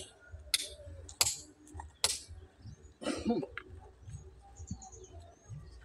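Sledgehammer striking a large stone boulder to split it: three sharp metal-on-rock clinks in the first two seconds, about 0.7 s apart, then the blows stop.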